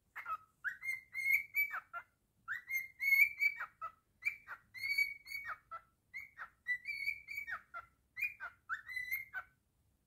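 Cockatiel whistling a tune in five short phrases with brief pauses between them, each a run of clear notes broken by sharp downward slurs.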